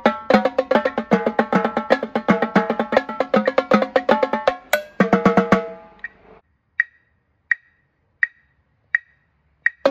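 Marching tenor drums played in a fast, dense cadence that stops about six seconds in, with the drums ringing out briefly. Then a metronome click ticks evenly, a little under a second apart, and the drumming starts again at the very end.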